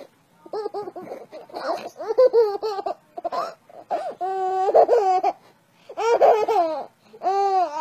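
Baby laughing in repeated high-pitched bursts of giggles, with short pauses between them.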